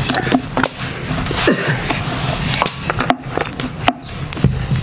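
A long, thin wooden rolling pin rolls flatbread dough out on a wooden board, with many short wooden knocks and clacks as it rolls and shifts on the board.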